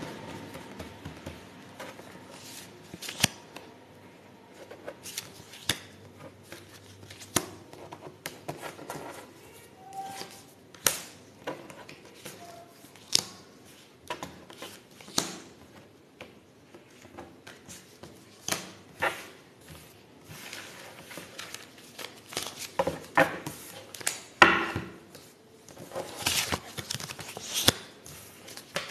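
A deck of baralho cigano (Lenormand) cards being shuffled and moved about on a table by hand: irregular soft card slides and sharp snaps, with a denser stretch of rustling near the end.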